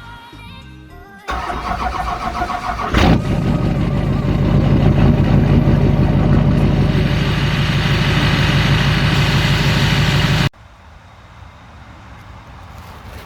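Murray riding mower's 18 hp Briggs & Stratton V-twin engine starting: a couple of seconds of cranking, a sharp pop as it catches about three seconds in, then running steadily. The engine sound cuts off suddenly near the end, leaving a much quieter background.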